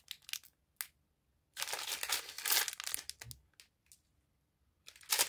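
Plastic snack-bar wrappers crinkling as they are handled: a few short crackles, then a longer stretch of rustling, and another crackle near the end.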